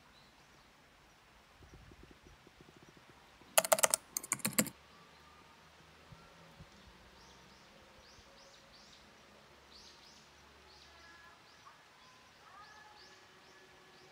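Two short, loud bursts of rapid clicking a few seconds in. After them come many faint, quick, high chirps, like small birds calling.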